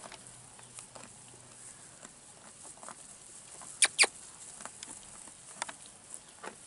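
Cameroon sheep pulling at and chewing dry hay: faint, irregular crunching and rustling, with two sharp clicks close together about four seconds in.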